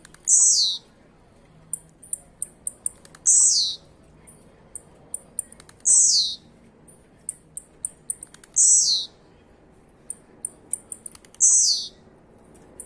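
Blue-black grassquit (tiziu) repeating its short buzzy call-song five times, about every three seconds, each a loud note that falls in pitch. Each is preceded by a quick run of short, high ticks.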